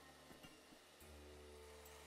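Near silence: room tone, with a faint low hum coming in about a second in.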